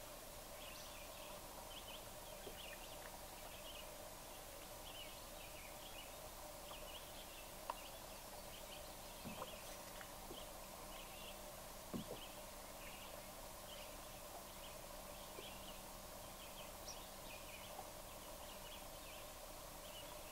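Quiet open-air ambience: faint, irregular bird chirps over a steady low hum, with a couple of soft clicks.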